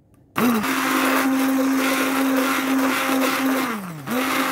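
Electric immersion blender running in a bowl, grinding soaked red chillies and vinegar into chilli sauce. It starts about half a second in with a steady motor whine, slows and drops in pitch near the end, then speeds back up.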